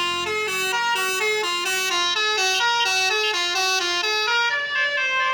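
Bus telolet horn, a multi-tone musical air horn, playing a winding melody of short stepped notes about three or four a second, ending on a longer held note near the end.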